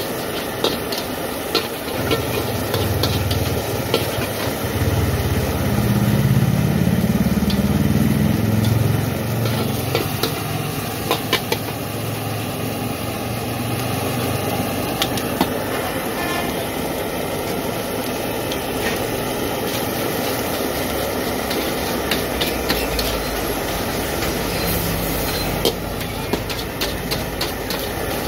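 Metal spatula scraping and clanking against a steel wok as egg and rice sizzle over a gas burner, in many sharp strokes. A low rumble swells and fades in the first half.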